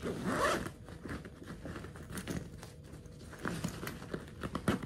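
A polyester backpack being handled: fabric rustling and crinkling, with scattered small clicks and a couple of sharper ones near the end.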